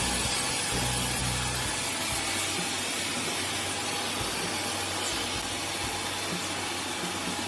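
Steady, dense mechanical noise of heavy machinery running, with a low hum in the first second or two.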